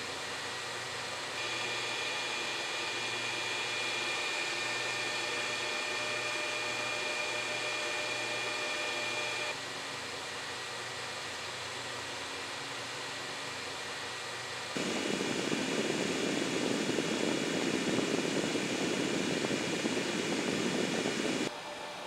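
Dual small DC fans of a homemade 12 V heater running steadily, blowing air through two PTC ceramic heating elements as a steady rush of air. In the first part there is a faint high whine. The sound shifts abruptly several times, and for several seconds near the end the rush of air is louder and lower.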